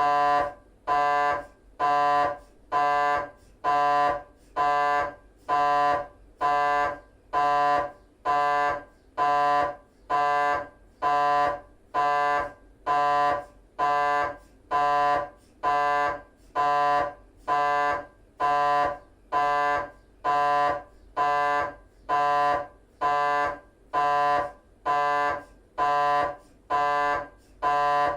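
GE 3-tesla MRI scanner's gradient coils running a T1 axial 3D FSPGR sequence: a loud pitched buzz pulsing on and off evenly, about three buzzes every two seconds.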